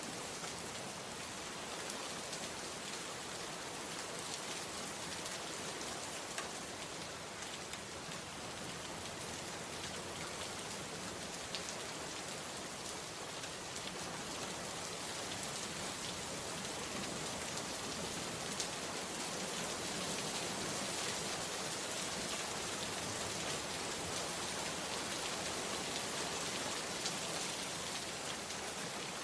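Steady rainfall, an even hiss of rain with scattered louder drop ticks, growing slightly heavier in the second half.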